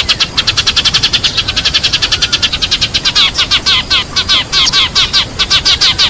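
A flock of Eurasian tree sparrows chirping rapidly and without a break, about eight chirps a second, some longer falling chirps in the middle. This is the sparrow flock call played as a lure to draw a flock in.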